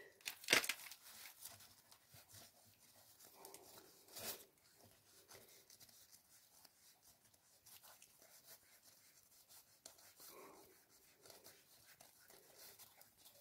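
Quiet hand-work at the engine's oil pump: a short click about half a second in and a fainter one about four seconds in, with faint rustling of a rag, as the thrust plug and its shims are handled in the pump housing.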